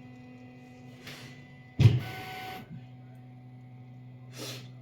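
3D printer homing, its stepper motors whining in steady tones that shift in pitch partway through. A sharp knock comes just under two seconds in, with short hissing swishes about a second in and near the end.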